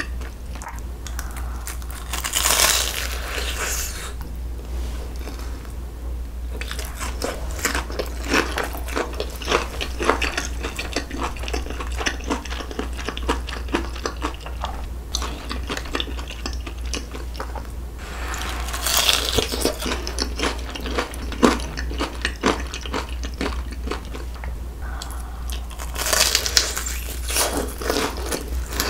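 Close-miked biting and chewing of a deep-fried, breaded cheese pork cutlet on a stick, the crisp crust crunching. There are louder bursts of crunching at bites about two, nineteen and twenty-six seconds in, with chewing in between, over a steady low hum.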